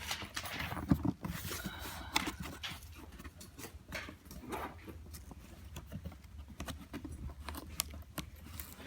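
A package being worked open by hand, with scattered clicks, rustling and scraping of the packaging.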